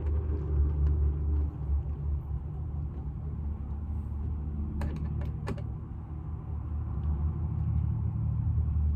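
A low, steady rumble, with a short cluster of sharp clicks about five seconds in.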